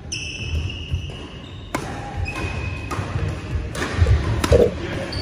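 Badminton rally: racquets strike the shuttlecock with about three sharp smacks a second or so apart, the loudest near the end. Sneaker soles squeak on the wooden court floor and footsteps thud between the shots.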